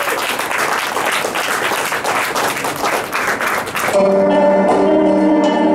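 Audience applauding, then about four seconds in a band starts playing, cutting in abruptly with steady sustained chords.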